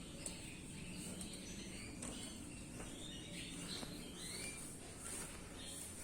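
Caged canaries chirping faintly, with short calls and a few rising and falling whistled notes, over a steady high-pitched hiss.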